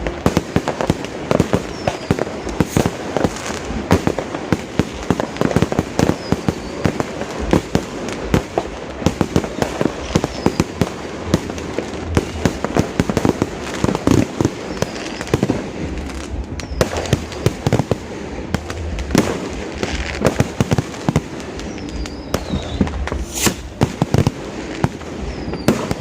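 Fireworks going off without a break: a dense run of rapid, overlapping bangs and crackles.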